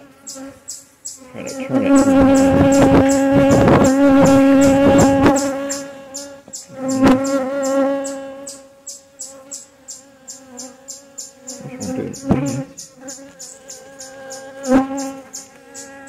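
Honeybees buzzing around an open hive: a steady hum of wings, loudest from about two to five seconds in as bees fly close past the microphone, with three more brief close passes later.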